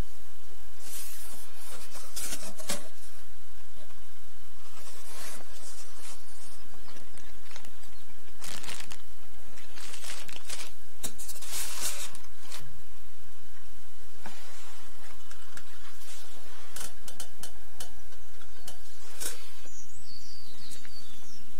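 Rustling and scraping of foam packing and cardboard as a CRT computer monitor is unpacked from its box, in a series of short irregular bursts over a steady low hum, with a faint wavering squeak near the end.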